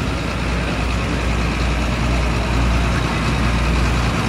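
John Deere tractor's diesel engine running steadily, a deep, even drone.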